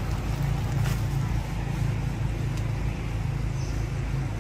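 A motor running steadily with a low hum, with a faint click about a second in.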